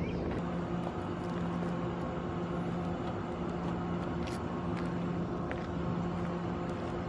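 Mitsubishi Lancer's four-cylinder engine idling with a steady low hum.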